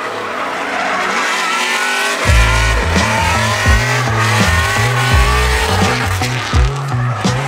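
LS-swapped Nissan 350Z drift car sliding, its engine revving and its tyres squealing. Background music with a heavy bass beat comes in about two seconds in.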